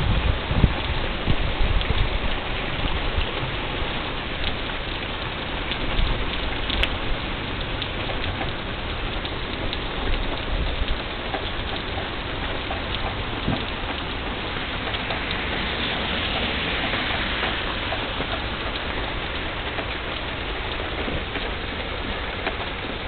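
Heavy rain falling steadily on a wet street, puddles and lawn, with many sharp drop hits close by. There are a few low bumps in the first two seconds.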